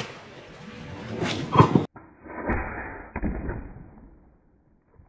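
Potato cannon shot: a rising whoosh that ends in a loud thump about a second and a half in, cut off abruptly. Then a muffled stretch with a couple of knocks fades out.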